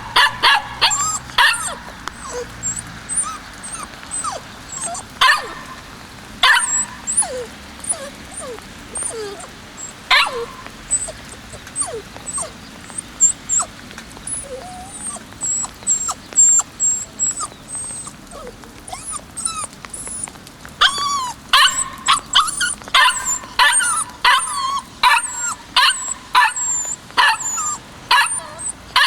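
Kishu Ken puppy, about eight weeks old, yipping and barking in short high calls: scattered at first, then coming in a quick, dense run for the last third.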